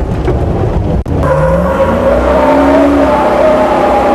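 Duramax turbo-diesel V8 in a Humvee accelerating hard, its engine note climbing in pitch and then holding as the truck drives past close by. The sound breaks briefly about a second in.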